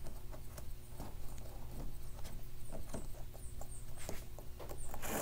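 Light, scattered clicks and rubbing as braided anchor-trolley cord is worked through a plastic pulley on a kayak's hull, over a low steady hum.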